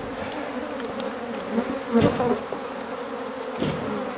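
A mass of honeybees buzzing steadily around a colony just exposed in a wall, with a couple of brief louder swells. The bees are upset and defensive after being disturbed.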